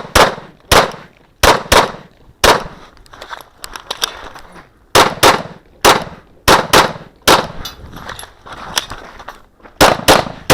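A Glock 34 9mm pistol firing a rapid string of shots, many in quick pairs, with a pause of about two and a half seconds partway through.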